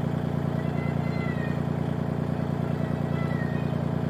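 A tractor engine running steadily at idle, a constant low hum. Faint high chirps sound twice over it, about a second in and again around three seconds.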